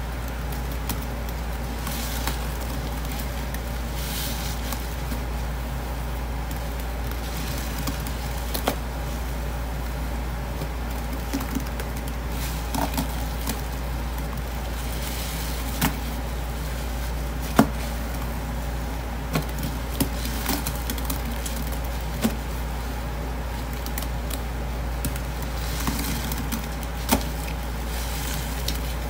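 Gloved hands squeezing and kneading a sponge loaded with thick detergent-powder paste, giving irregular wet squelches and sharp crackling pops, over a steady low hum.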